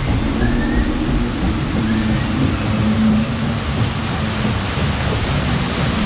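Steady rushing water from waterfalls and the churning river channel around a rapids-ride raft.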